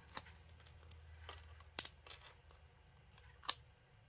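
Faint handling of paper and foam adhesive pieces on a craft table: a few light clicks and taps as a small foam dimensional is picked up, the sharpest about two seconds in and near the end, over a faint low hum.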